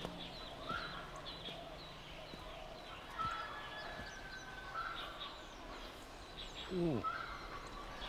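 Quiet farmyard ambience: small birds chirping repeatedly, with poultry calling faintly. About seven seconds in there is one short call that falls steeply in pitch.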